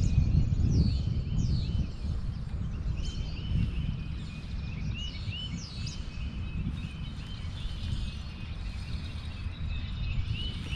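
Several birds chirping and calling, some in short repeated chirps and others in quick downward-sliding whistles, over a low rumble that is strongest in the first couple of seconds.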